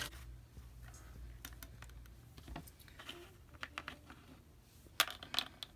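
Light plastic clicks and taps as a fashion doll is handled and set on its clear plastic doll stand, with a sharper cluster of clicks about five seconds in.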